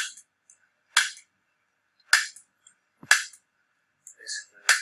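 A chiropractic adjusting instrument delivering sharp, single impact clicks into the spine, five times at about one-second intervals, with a slightly longer pause before the last.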